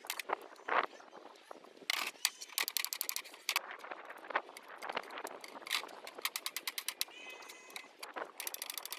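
Rapid runs of sharp clicks and taps from hand work on a window screen frame being rebuilt.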